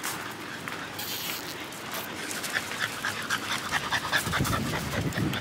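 Dogs panting, a quick run of short breaths from about halfway in.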